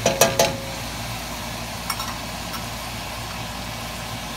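Three quick clattering clinks of metal utensils being set down, then a lighter knock about two seconds in, over a steady kitchen hum.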